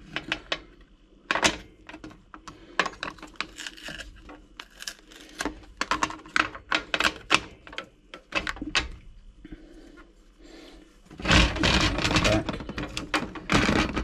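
Hands handling a plastic capsule coffee machine and pulling off its plastic packing strips: a string of light clicks and knocks of plastic parts, with a longer burst of rustling and scraping about eleven seconds in.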